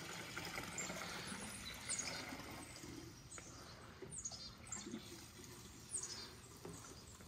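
Premix fuel trickling from a plastic fuel jug through its spout hose into a Yamaha YZ125's tank, a faint steady pour. Short falling bird chirps come every second or so over it.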